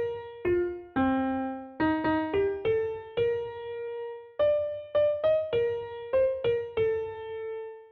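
Background music: a keyboard melody of single piano-like notes, each struck and dying away, one after another.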